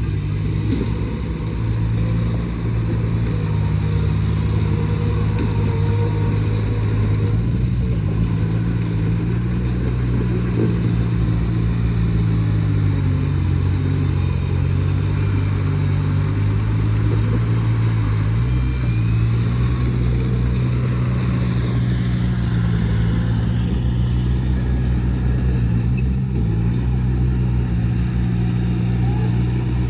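Diesel engine of heavy earth-moving equipment running steadily, its pitch dipping and recovering a couple of times as it takes load.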